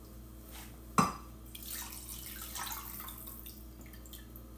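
Beef cooking liquid poured from a glass bowl into a glass baking dish, trickling and dripping. A sharp knock about a second in is the loudest sound.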